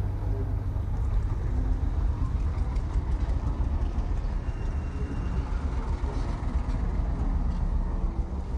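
Outdoor roadside background noise: a steady low rumble with a faint hiss, with no clear single event.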